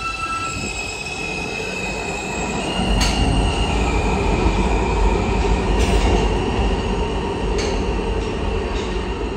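Kawasaki R160 subway train pulling out and moving away down the tunnel. A deep rumble of wheels on rail grows louder about three seconds in, under a high whine that shifts in pitch, with a few sharp clicks every couple of seconds.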